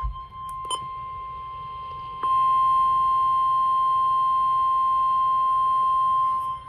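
NOAA Weather Radio warning alarm tone: a single steady 1050 Hz tone, the signal that a warning message follows. It becomes much louder a little over two seconds in, with a click just before that.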